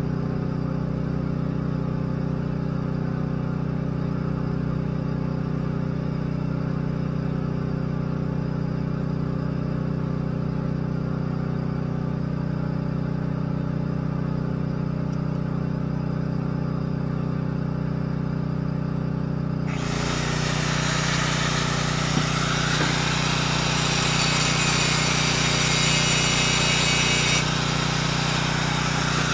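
An engine running steadily throughout. About two-thirds of the way in, an arc welder strikes and a loud, even hiss of welding starts abruptly and runs on.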